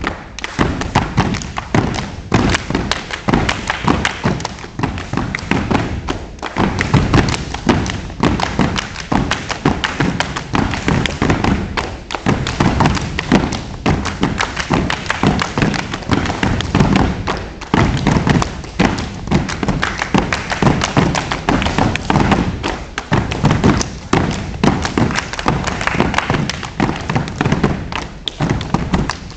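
Step team stepping in unison: rhythmic stomps of many feet on a mat-covered floor mixed with sharp hand claps, in quick patterns throughout.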